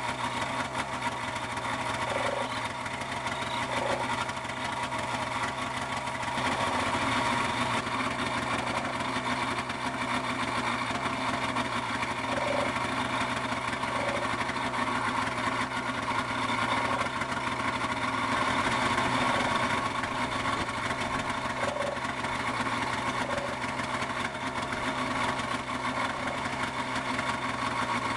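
Ultralight aircraft engine running steadily close by.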